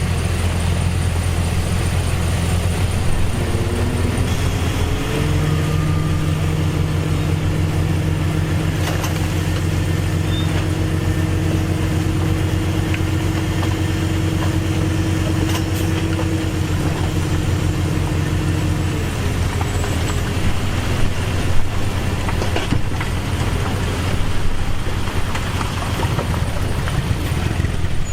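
Heavy diesel earthmoving machinery running, a bulldozer and a dump truck: a steady low engine drone, with one engine climbing in pitch about four seconds in, holding there under load for a long stretch, then easing off about two-thirds of the way through. A few short metallic clanks stand out, the loudest a little after the engine eases off.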